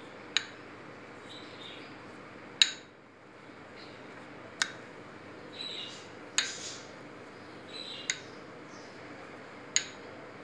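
A pastry brush clinking against the rim of a small ceramic bowl of beaten egg, six sharp clinks about two seconds apart. Between them comes softer scratchy dabbing as the egg wash is brushed onto rounds of dough.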